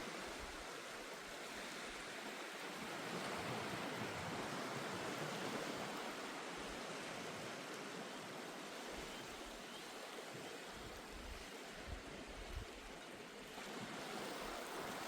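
Surf washing onto the beach, a steady rushing noise that swells and eases, with a few low wind rumbles on the microphone near the end.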